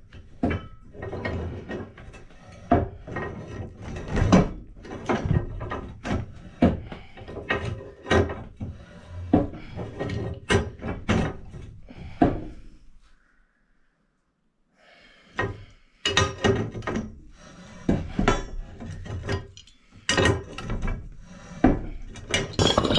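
Galvanized well pipe and a sand point being worked together by hand with pipe wrenches: irregular metallic clicks, knocks and ratcheting handling noises, with a pause of about two seconds partway through.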